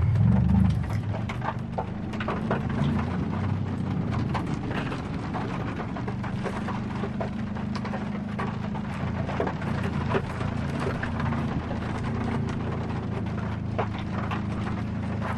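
Four-wheel-drive truck's engine pulling steadily under load through a deep sand pit, pushed hardest in the first moment and then settling into an even drone. A constant patter of small clicks and crackles runs over it.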